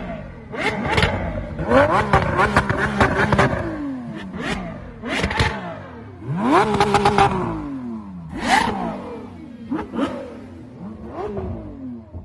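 Naturally aspirated V12 supercar engine revved repeatedly at a standstill: about eight quick blips that rise and fall in pitch, one held for about a second midway. Sharp cracks come with the revs.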